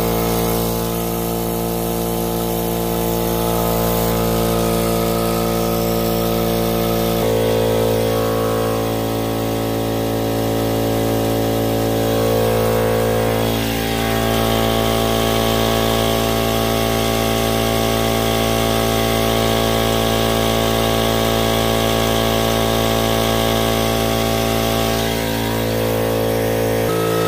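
King Canada Flex Air 20-gallon air compressor running steadily, its pump filling the tank from empty. A loud, even machine drone whose tone pattern shifts abruptly about seven seconds in and again near the end.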